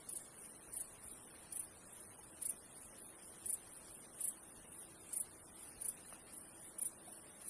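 High-pitched insect chirping, a steady shrill trill that swells in pulses about twice a second.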